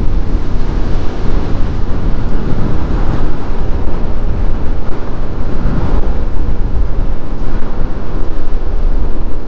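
Wind rushing over the microphone of a motorcycle at a steady cruise, with engine and road noise underneath.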